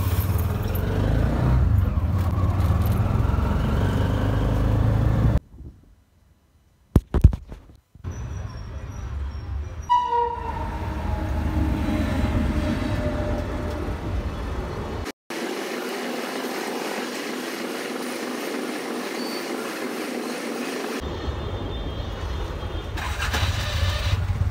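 Riding inside an auto-rickshaw in city traffic, its small engine running, in several short clips cut together. A horn sounds about ten seconds in, and there is a brief near-silent gap with a click around six to eight seconds in.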